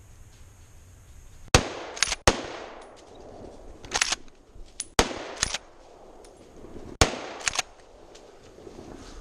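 Three rifle shots from a Blaser R8 in .30-06, the first about a second and a half in and the last two about two seconds apart, each a sharp crack that rings out through the woods. Between the shots come quick double clacks of the straight-pull bolt being worked to chamber the next round.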